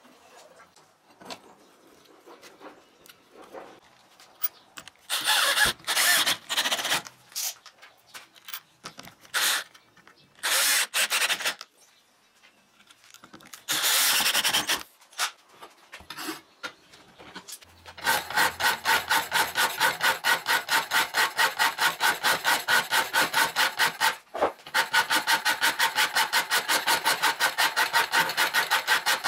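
Short, irregular bursts of noise as screws are driven through washers into a wooden jig to clamp a 5160 steel knife blank. A little past halfway this gives way to a hand file rasping across the clamped steel blank. The strokes are rapid and even, about four a second, and each carries a steady ringing note.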